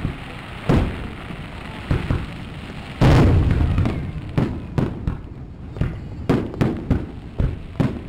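Aerial fireworks shells bursting in a series of booms, the loudest about three seconds in, followed by a quicker run of smaller cracks.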